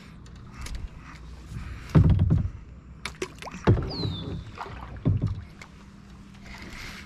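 Kayak paddle strokes: the blade dips and pulls through the water three times, about two, three and a half, and five seconds in, with a few light knocks of the paddle. A short falling whistle sounds about four seconds in.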